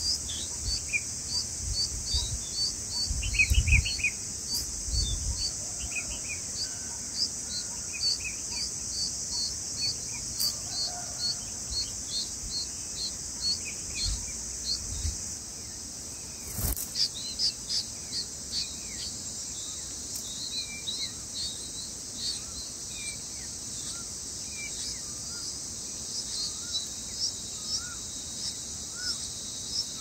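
Steady high insect drone, like crickets, under a regular series of short chirps about twice a second. Scattered short bird chirps come over it and turn into a run of quick rising chirps near the end, while the bulbul nestlings gape for food. A few low thumps sound in the first seconds, and one sharp click about halfway.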